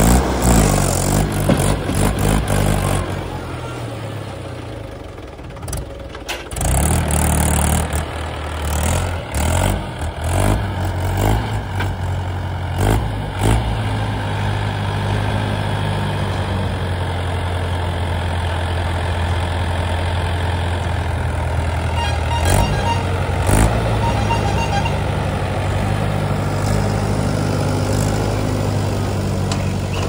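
Mahindra 475 DI tractor's four-cylinder diesel engine running, revving up and down through the first half with a few sharp clanks, then holding a steady pitch.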